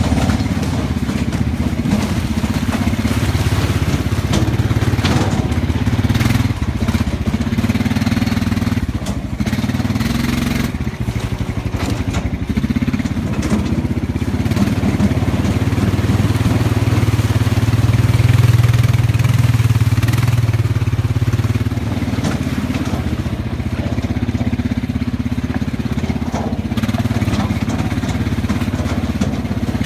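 An ATV's engine running as the quad is ridden along a rough trail, swelling louder about halfway through, with scattered knocks and rattles from the bumps.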